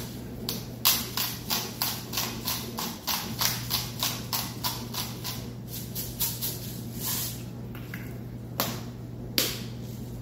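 Hand-twisted spice mill grinding over a bowl of soup: a quick run of gritty clicks, about three or four a second, for most of the time. Two louder single clicks come near the end.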